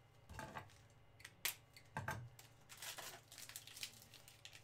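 Plastic wrapper of a Donruss baseball card pack crinkling and tearing as the pack is handled and opened, in short scattered bursts.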